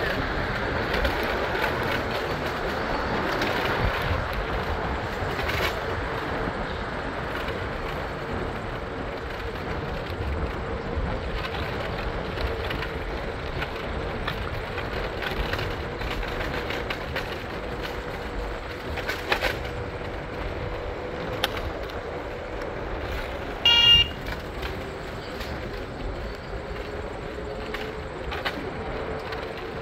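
Steady running noise of a moving vehicle with a faint constant hum, and one short, loud beep near the end.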